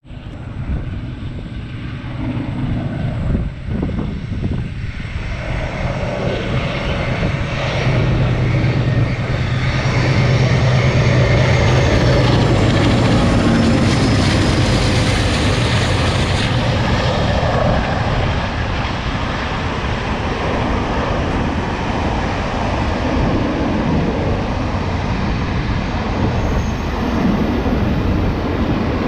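Three vintage diesel locomotives working up a grade. Their engines drone louder and louder as they approach, and are strongest from about 8 to 16 seconds in as they pass. After that comes the steady rumble of a train of empty ballast hopper wagons rolling by. The third unit, 442S2, is judged by the uploader to be idling or shut down rather than pulling.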